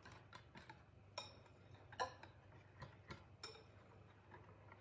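Wire whisk stirring batter in a ceramic bowl, the wires tapping the bowl in faint, irregular clicks.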